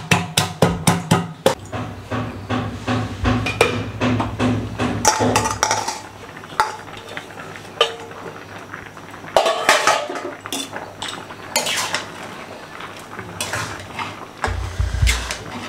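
A stone pestle knocking quickly against a steel bowl as green chillies and ginger are crushed, stopping about a second and a half in. Then scattered clinks and scrapes of a metal spatula against the metal wok of simmering bottle gourd and mung dal, a few of them loud.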